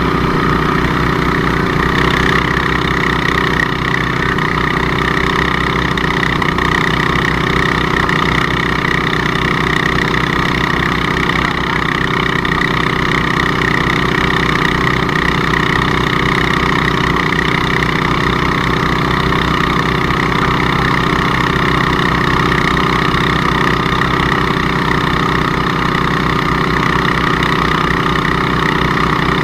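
An engine running steadily at a constant speed under test: a continuous drone that holds the same pitch throughout, with no revving or stops.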